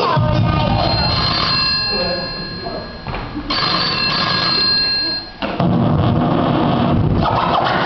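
A telephone ringing in two bursts during a break in loud dance music; the heavy beat drops out under the rings and kicks back in about five and a half seconds in.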